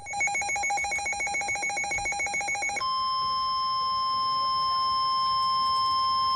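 Electronic alert tones on a NOAA Weather Radio warning broadcast. A rapid, trilling two-pitch beep pulses about a dozen times a second and stops about three seconds in. It gives way at once to the steady 1050 Hz warning alarm tone, the signal that a warning message is about to follow.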